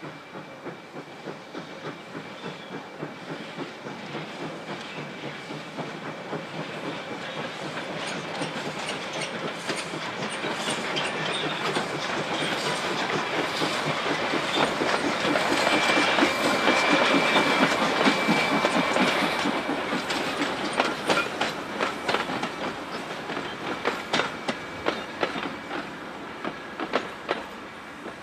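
Steam-hauled train, locomotive M4 with its carriages, passing by with its wheels clicking over the rail joints. It grows louder to a peak a little past halfway, then fades. A thin steady high tone runs underneath.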